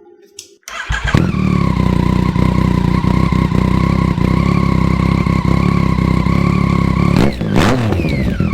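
Yamaha FZ-09's three-cylinder engine, breathing through a newly fitted aftermarket exhaust, starts up about a second in and runs at a steady idle, with a brief change in pitch near the end.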